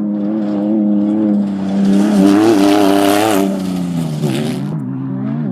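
Off-road race vehicle's engine running hard at high revs, with a rush of noise swelling as it goes by about two to three and a half seconds in. About four seconds in the engine pitch drops briefly, as when lifting off the throttle, then climbs again.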